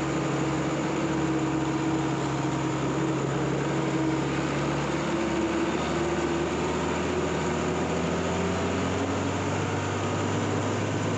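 A motor engine running steadily, its pitch shifting a little about halfway through.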